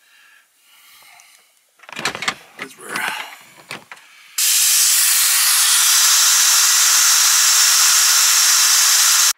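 Compressed air hissing steadily out of a tire through a home-made air-down manifold with a pressure gauge as the tire is deflated. The hiss starts suddenly about four seconds in, after a few clicks and rattles from the brass quick-connect fittings being handled.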